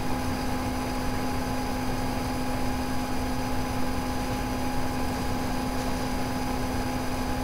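Steady background hum with a constant low tone and an even hiss: room tone, with no distinct event.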